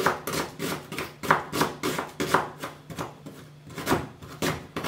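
Kitchen knife slicing an onion into strips on a wooden cutting board: sharp knocks of the blade through the onion onto the board, irregular, about two or three a second.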